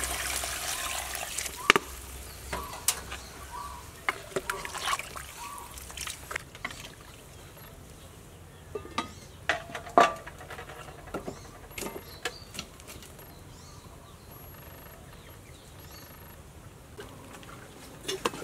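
Water pouring into a pot of stew, tapering off in the first second or two, followed by sparse clicks and knocks from the pot and its metal lid.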